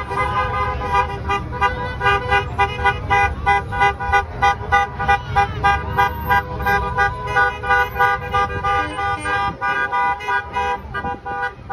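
Vehicle horns tooting in quick repeated beeps, about three a second, thinning out after about nine seconds, over the low rumble of passing engines.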